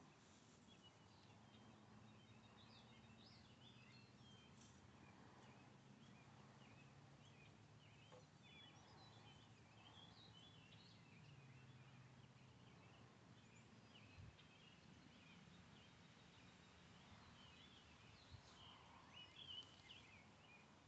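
Near silence with faint, scattered bird chirps and a faint low steady hum.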